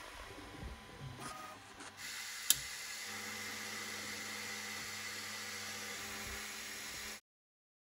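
Creality K2 Plus 3D printer running with a quiet, steady hum and a faint whine from its fans and motors. A single sharp click comes about two and a half seconds in, and the sound cuts off abruptly near the end.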